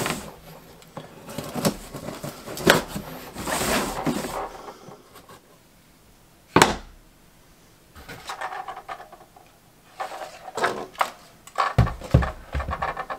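Unboxing noises from a Mr. Heater Little Buddy propane heater's cardboard box and plastic parts: irregular rustling and scraping of cardboard and packing, a sharp knock about six and a half seconds in as a plastic part is set on the wooden bench, and a few knocks near the end as the heater is put down.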